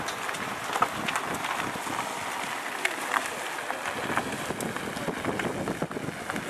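Wind buffeting the microphone over the murmur of a crowd, with a few sharp clicks scattered through.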